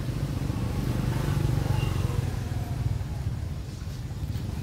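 A motor vehicle's engine running, growing louder about a second and a half in and then easing off.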